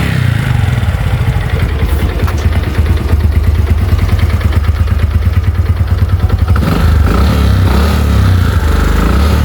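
Honda Biz single-cylinder four-stroke engine running close up, with a fast, even mechanical beat and a light knock. The owner calls it 'batendo o pino' (pin knock) and takes it as a sign the worn engine is due for a rebuild.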